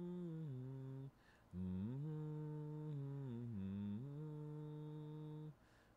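A man humming a slow tune: long held notes that slide up and down in pitch, broken by two short pauses, about a second in and near the end.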